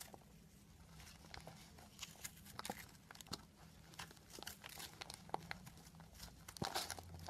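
A block of dry, pressed soap shavings crumbling and crunching as fingers squeeze it: irregular crisp crackles and small snaps, coming thickest near the end.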